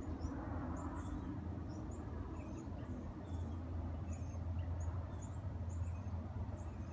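Small birds chirping in short, scattered high notes over a steady low hum.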